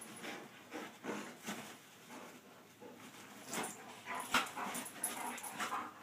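Two German Shepherds play-fighting, making a string of short, irregular dog vocal sounds. The sounds get busier and louder in the second half, with the loudest sharp burst a little past the middle.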